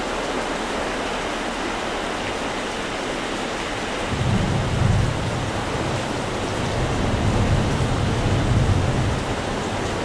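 Steady rush of rain and storm surf, with a low rumble of rolling thunder that starts about four seconds in, swells twice and dies away about five seconds later.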